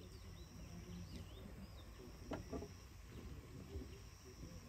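Faint forest ambience: a steady high insect drone that stops about three seconds in, a few short falling bird chirps, and a couple of soft knocks near the middle.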